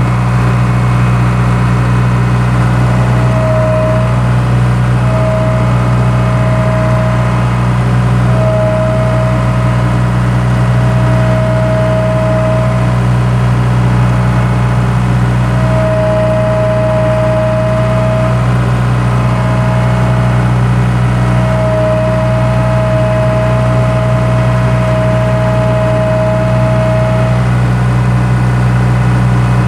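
Skid steer engine running steadily, with a higher whine that comes and goes several times.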